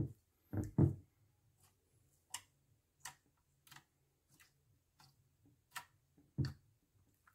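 Clear glitter slime being kneaded and pressed by hand in a glass baking dish: a few dull squishy presses, the loudest near the end, and between them a run of short sharp clicks and pops about every two-thirds of a second.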